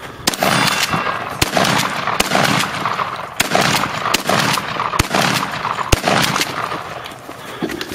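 Series of gunshots from a long gun at steel targets, fired about a second apart, each trailing off in echo.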